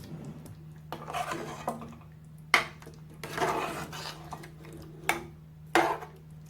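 A spoon stirring and scraping through a pan of thick chicken korma, with three sharp knocks of the spoon against the pan.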